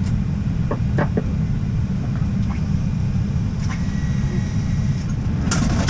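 Steady low rumble in an Airbus A320 cockpit, from the engines and airflow, with a few light clicks about a second in and a short burst of noise near the end.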